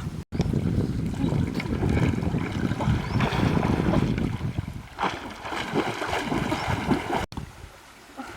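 Water sloshing and splashing, as of someone wading and working in a river. It breaks off abruptly a moment in and again near the end.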